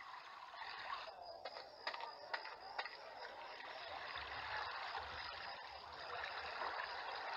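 Faint water ambience: quiet, steady running and lapping water, with a few soft clicks early on.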